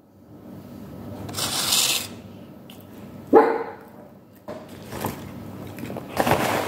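A dog barks once about three seconds in. Paper towel rustles as sheets are pulled off the roll near the end.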